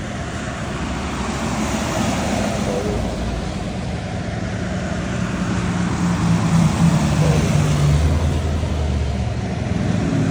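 Buses driving past: a steady rush of engine and tyre noise, with a low engine drone that grows louder toward the end.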